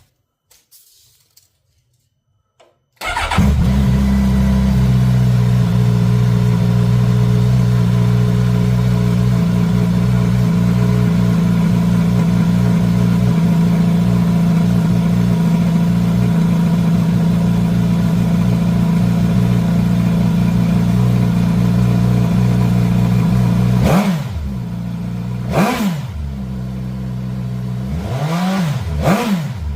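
2025 Suzuki GSX-S1000's inline-four engine on its stock exhaust, starting about three seconds in and running at a steady fast idle. About 24 seconds in the idle drops and the throttle is blipped twice.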